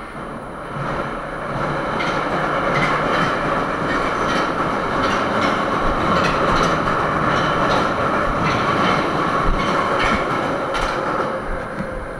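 Moscow Metro train passing close by in a tunnel: a loud rushing rumble that builds over the first couple of seconds, with the wheels clacking repeatedly over rail joints, then easing off near the end.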